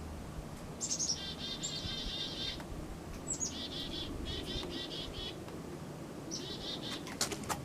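A songbird singing three similar phrases, each a few high descending notes running into a rapid trill, with a few sharp clicks near the end.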